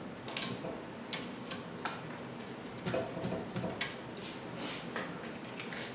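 Irregular small clicks and light metallic clatter of a hand screwdriver working on screws in an aluminium-extrusion frame, about ten sharp ticks spread unevenly, with a short cluster of clinks with a faint ring about three seconds in.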